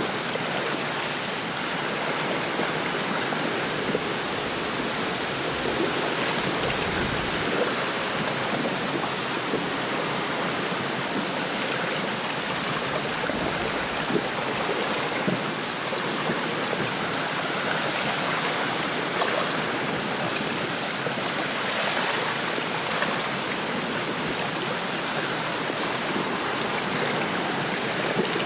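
Steady wind rushing through a lakeside reed bed, with small waves lapping at the shore.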